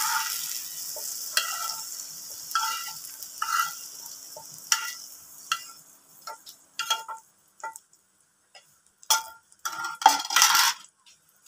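Fried baby potatoes being tipped and scraped out of a hot metal pan onto a stone grinding slab. The oil is still sizzling, fading away over the first six seconds, and there are repeated knocks against the pan that ring briefly. After that come scattered clicks and a short clatter near the end as the last potatoes tumble out.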